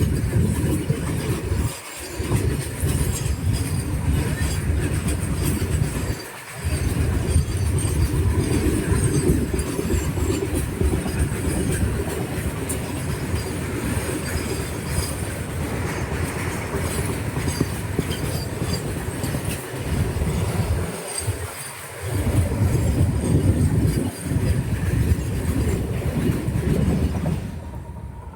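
A moving train: a steady, loud rumble of wheels on rails that drops out briefly a few times and fades near the end.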